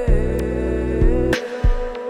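Slow song playing: sustained chords over a steady bass with a long held note, and a couple of soft percussive hits in the second half.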